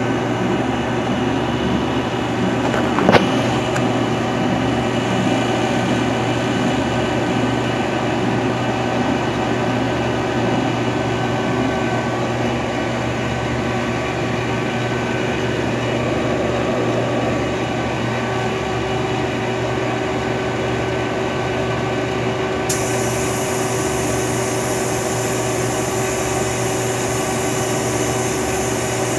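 Robinair AC recovery/recharge machine running its vacuum pump with a steady hum, evacuating a car's air-conditioning system after a compressor replacement, ahead of the leak test and refrigerant charge. A single click about three seconds in.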